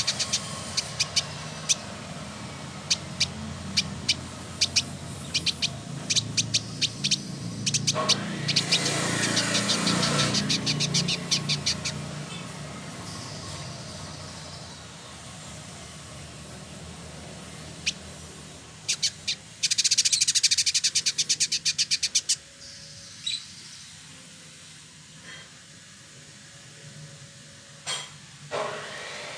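Male village indigobird singing: bouts of rapid, sharp chattering notes, with a dense fast trill about eight seconds in and another around twenty seconds in. A low rumble runs underneath for the first twelve seconds or so.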